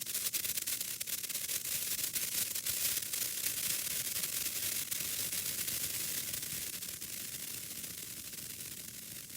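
Japanese senko hanabi sparkler crackling: a dense stream of tiny rapid spark pops, slowly dying down over the last few seconds.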